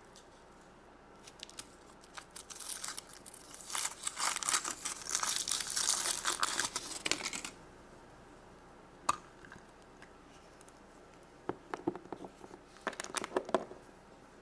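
Foil wrapper of a chocolate egg being torn and crinkled off, loudest in a dense crackling spell of a few seconds, then a single click and a few short crinkles and cracks near the end.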